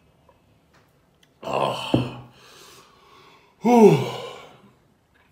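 A man's loud breathy gasp, then a voiced sigh whose pitch rises and falls: two hard exhalations.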